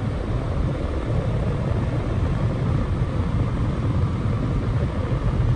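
Car driving: a steady low road rumble.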